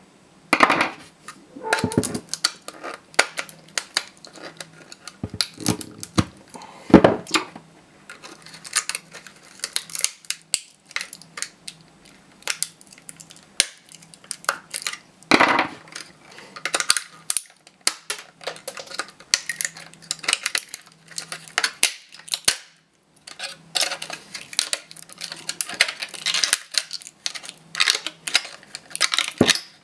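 Black plastic casing of an HP laptop battery pack being pried apart with a flathead screwdriver and pliers: irregular clicks, cracks and scrapes of snapping plastic and metal tool, with a few louder cracks.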